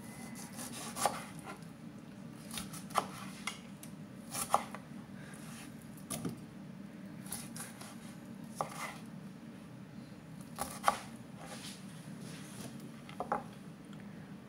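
Kitchen knife slicing limes, the blade knocking on the cutting board in irregular strokes a second or two apart, over a steady low hum.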